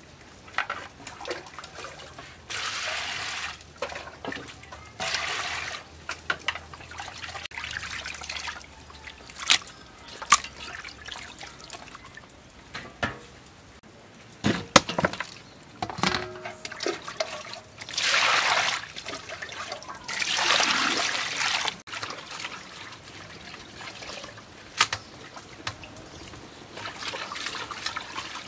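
Water sloshing and pouring in a stainless steel bowl as food is washed by hand, in several bursts of a second or two each. A few sharp clicks and knocks fall in between.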